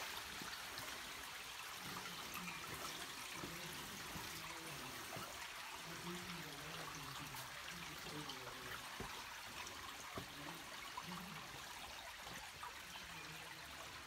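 Shallow creek water trickling and running over rocks: a steady, even hiss.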